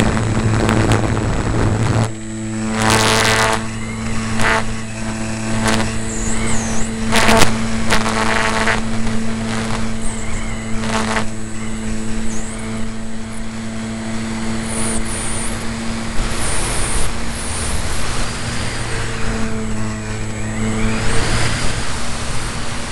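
RC Piper Cub model plane's motor running at a steady pitch, with a few short gusts of wind noise on the microphone.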